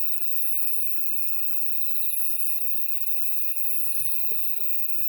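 Summer-night chorus of grass insects singing together: a steady high trill, a fast pulsing chirp above it, and a very high buzzing phrase that repeats about every second and a half. A few soft low thumps come near the end.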